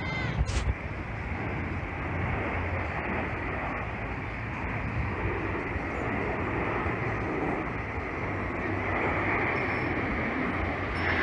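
Formation of Canadair CT-114 Tutor jets, each with a single turbojet, passing overhead: a steady jet rush with a higher whine building near the end.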